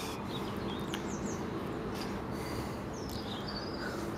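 Small birds chirping a few times over a steady outdoor background rush.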